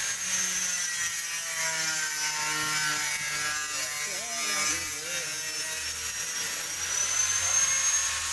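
A power tool whining steadily at a high pitch, dipping slightly in pitch and climbing back near the end, over rough scraping and rubbing sounds on fiberglass.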